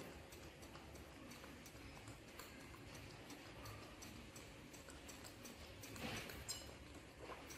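Near silence: faint room tone with small scattered clicks, and a short rustle about six seconds in.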